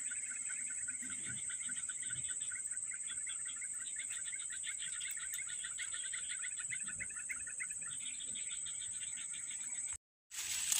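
A steady, high-pitched insect drone with a fast run of chirping notes over it for most of the stretch. The sound drops out completely for a moment near the end.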